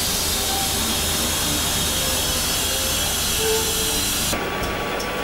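Steady loud hiss of workshop machinery running, with a few faint short squeaks over it; the sound drops and changes about four seconds in.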